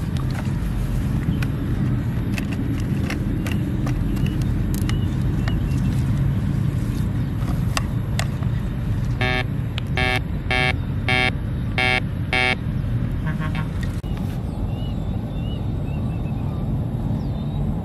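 Metal detector giving its target signal over the dug hole: a run of about six buzzy beeps in a row, starting about nine seconds in, then a few fainter beeps, over a steady low rumble.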